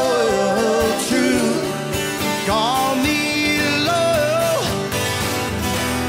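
Country song playing: a voice singing long held and gliding notes over guitar accompaniment.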